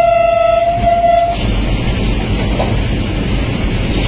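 Locomotive horn sounding two short blasts back to back on one steady note, over the steady rumble of the train running through the station.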